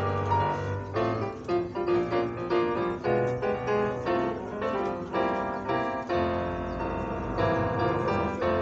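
Piano music: a melody of single struck notes, a new one about every half second, over held bass notes.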